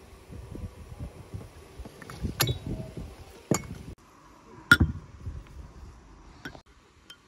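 Metal spoon clinking against glass: a handful of separate sharp clinks with a short ring, the loudest about two-thirds of the way through, as a spoon dips into a glass bowl of pomegranate jam.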